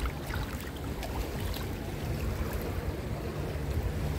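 Steady low rumble of wind on the microphone, with sea water washing and lapping at the shoreline.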